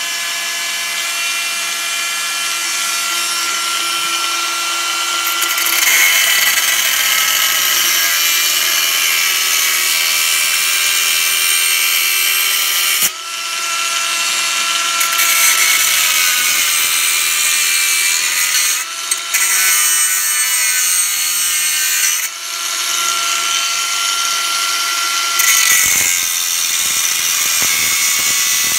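Haimerdinger LB168 18 V brushless cordless angle grinder running with a steady high whine while cutting a threaded steel pipe, dipping briefly a few times midway; the motor holds its speed under load.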